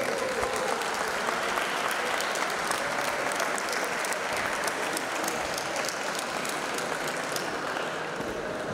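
Audience applauding: dense clapping that thins out toward the end.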